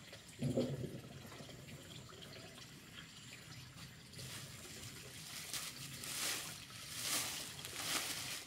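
Water dripping and trickling, with a short low knock about half a second in. From about halfway through, a series of hissy splashes comes roughly once a second.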